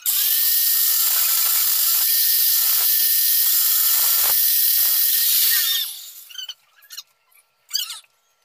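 Handheld electric grinder running against metal tubing: a steady high-pitched motor whine under a dense grinding hiss for almost six seconds. Then it is switched off and the whine falls away as the motor spins down, followed by a few faint clicks.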